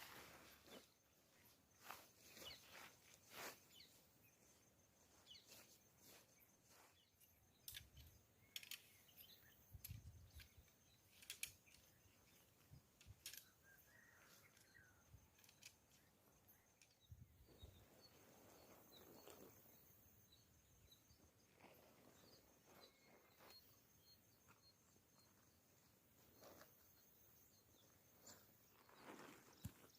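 Near silence: quiet outdoor ambience with scattered faint clicks, light handling noises and a few soft low thumps, a faint steady high tone through much of it, and a brief faint chirp about halfway through.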